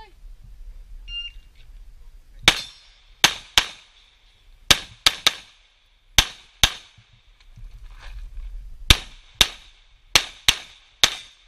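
Shot timer's short start beep, then a semi-automatic pistol fired thirteen times over about nine seconds, mostly in quick pairs with short pauses between. This is a timed practical-shooting course of fire, the pairs being two shots on each target.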